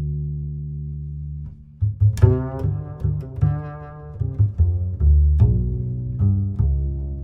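Instrumental background music: a low held note fades away, then about two seconds in a run of short, sharply started notes begins.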